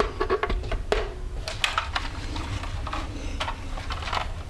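Irregular clicks and light knocks of a stirring paddle being worked into a Cuisinart Complete Chef food processor bowl, catching on cheese, over a low steady hum.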